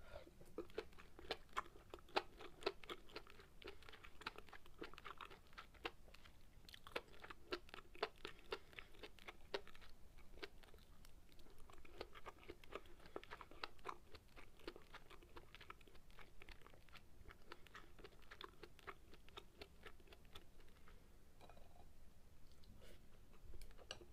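A person chewing mouthfuls of sukiyaki close to the microphone: rapid small mouth clicks and chewing noises. The chewing comes in two long runs with a short pause about ten seconds in, and thins out near the end.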